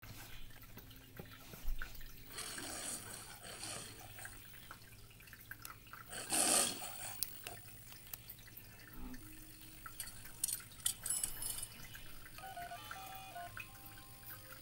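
The MGM lion logo's roar, heard twice and faint over a low hum, with the second roar the louder. Soft orchestral notes of the film's score begin near the end.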